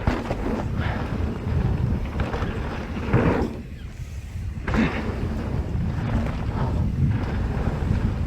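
Wind buffeting the microphone of a GoPro action camera on a mountain bike riding fast down a dirt trail, with tyre noise from the dirt and short louder rushes about three and five seconds in.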